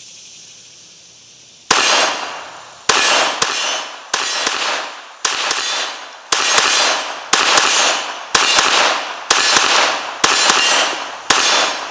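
Glock 44 .22 LR pistol firing about eleven shots at a steady pace of roughly one a second, each crack trailing off in a short echo. The shots come without a break in rhythm: the hand-loaded 18-round ProMag feeds with no malfunction.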